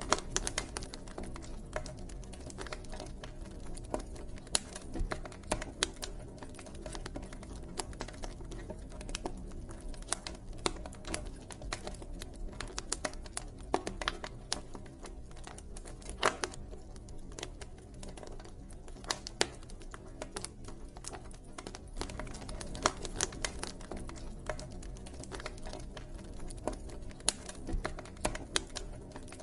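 Wood campfire burning, crackling with irregular sharp pops and snaps, several a second, over a steady low rumble of the flames.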